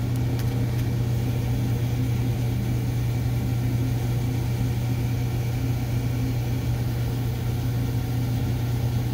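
Steady low hum of a running machine: a constant drone that does not change.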